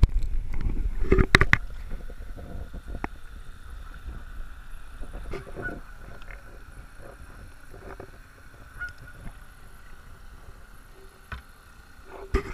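Kayak paddle splashing and knocking against the boat for the first couple of seconds. After that, geese give short honks every second or two over the quieter lap of water.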